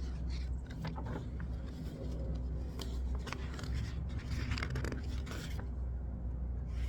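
Paper rustling and handling as the pages of a picture book are turned, over a steady low hum. The rustling stops for about a second near the end.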